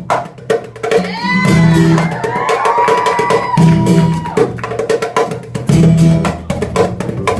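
Instrumental break in a song: strummed guitar chords with drums and percussion. About a second in, a higher melody line that bends in pitch comes in and runs for a couple of seconds.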